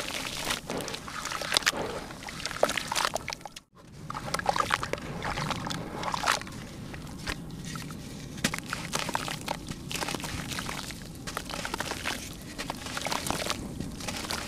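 Wet lumps of red dirt being crumbled by hand, with crumbs and grit dropping and splashing into shallow water in a plastic tub: many small crackles mixed with sloshing. The sound cuts out for a moment a little under four seconds in.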